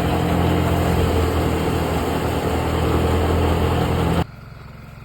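An engine running steadily at an even speed. About four seconds in, it drops suddenly to a much quieter steady hum.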